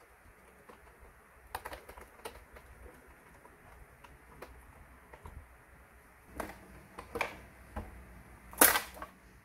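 Small clicks and taps of a screwdriver working screws out of a plastic RC truck chassis, with a few louder plastic knocks and clacks later on, the loudest near the end as the plastic body parts are handled.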